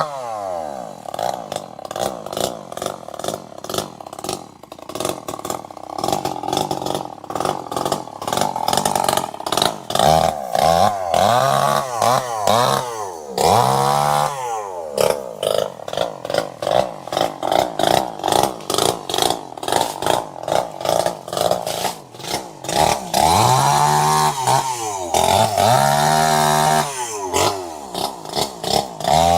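Two-stroke chainsaw engine running, its pitch rising and falling again and again as the throttle is worked up and down.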